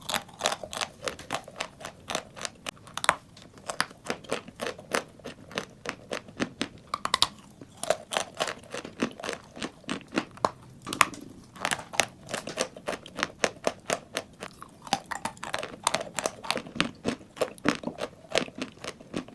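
Dry chalk being bitten and chewed close to the microphone: a rapid string of sharp, dry crunches, several a second.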